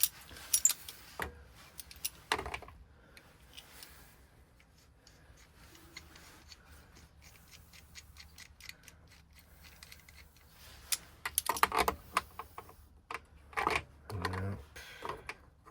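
Scattered metallic clicks and taps of small metal parts and hand tools being handled, sparse through the middle and bunching into a quick run of clicks and knocks near the end.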